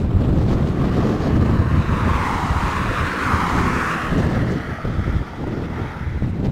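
Strong desert wind in a sandstorm buffeting the microphone in gusts, with a hiss that swells and fades about midway through.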